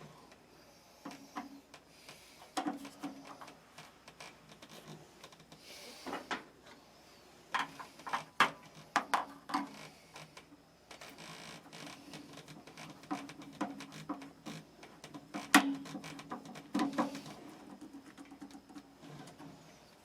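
Scattered clicks, taps and knocks of hand tools and metal parts being handled on an electric water heater, with a low hum coming and going in stretches.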